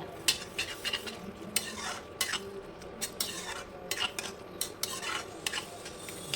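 A spoon stirring and scraping in a kadai of paneer gravy, in a dozen or so irregular strokes, with a light sizzle of the gravy cooking underneath.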